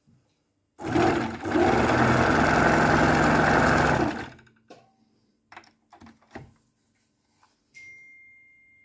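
Singer 367 sewing machine running steadily for about three seconds as it stitches through denim, then stopping. A few light clicks follow. Near the end a thin, high, steady ringing tone starts and slowly fades.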